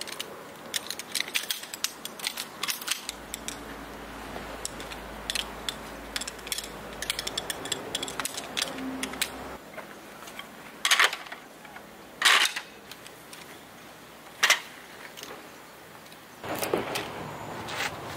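Folding camp furniture being set up by hand: light clicks and clatter of metal frame poles and a wooden slat roll-table top, with three louder knocks in the middle.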